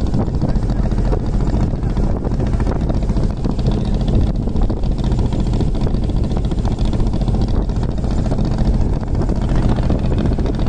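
Vehicle on the move: a steady, loud low rumble of engine and running noise.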